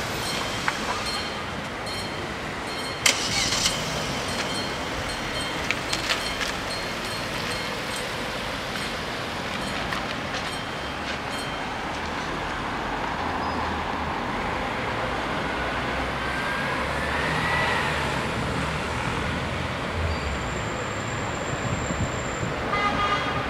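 Level crossing bells ringing while the barrier arms come down, stopping two or three seconds in, followed by a few sharp clanks. After that comes steady street and traffic noise with a vehicle passing, and the bells start ringing again near the end.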